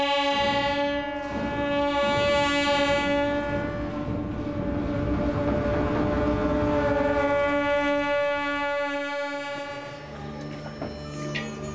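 Tibetan ritual music: one long, loud, held note from a wind instrument with a blaring horn-like tone. It fades near the end as a lower steady drone comes in.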